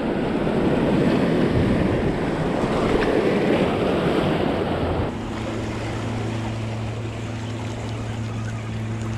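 Surf washing against rocks, swelling to its loudest about three to four seconds in, with wind on the microphone. About five seconds in it cuts off abruptly to quieter water noise under a steady low hum.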